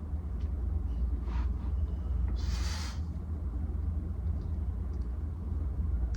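Steady low background rumble, with a short breathy hiss about two and a half seconds in.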